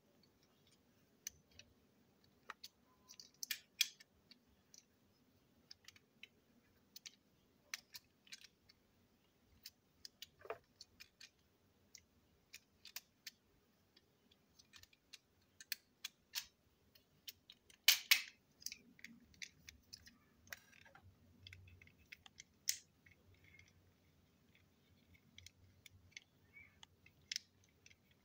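Small plastic parts of a toy train engine clicking and tapping as its wheels and chassis are handled and fitted together: scattered, irregular sharp clicks, the loudest a short cluster about two-thirds of the way through.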